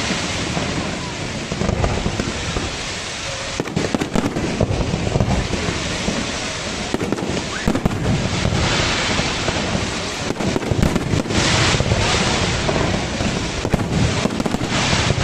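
Fireworks display going off: many sharp bangs at irregular intervals over a continuous rumble and crackle of bursting shells.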